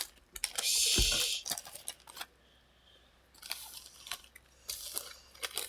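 Pokémon trading cards being handled after a pack is opened: a loud rustle lasting about a second near the start, then scattered light clicks and taps.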